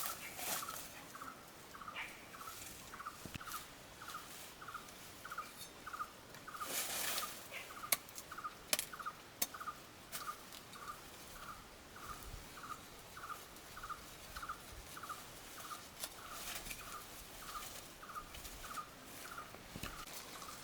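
An animal's short chirp repeated steadily about twice a second, with a few sharp clicks and a brief rustle about seven seconds in.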